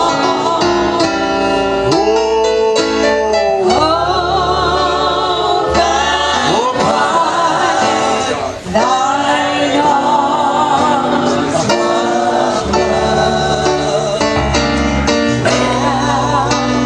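Gospel song played and sung during an altar call: a singing voice with vibrato over a backing of sustained instrumental chords and a bass line.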